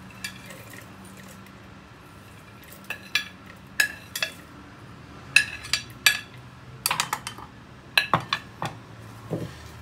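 Metal spoon scraping and tapping against a plate in a dozen or so sharp, irregular clinks, beginning about three seconds in, as fried dried shrimp is pushed off the plate into a wooden mortar.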